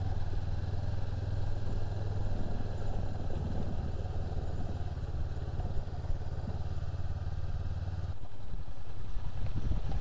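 Honda CB500X parallel-twin engine running steadily while the motorcycle rolls slowly along a dirt road, heard from on the bike. About eight seconds in, the engine note changes and breaks up.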